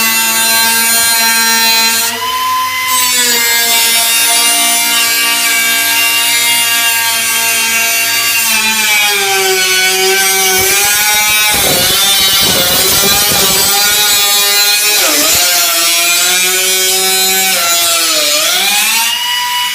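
High-speed handheld power tool motor whining steadily, its pitch sagging and recovering several times as it is pressed into the work.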